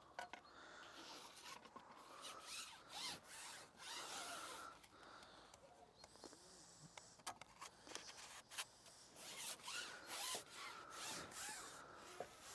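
Faint rubbing and scattered light clicks of a long carbon fishing pole being handled and slid back through the angler's hands.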